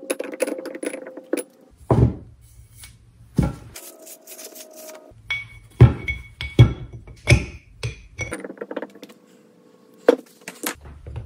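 Steel ball bearings and a bearing sleeve from a milling machine spindle being handled and fitted together by hand: a series of metallic clinks and knocks, some with a brief high ring, the sharpest few coming in the middle.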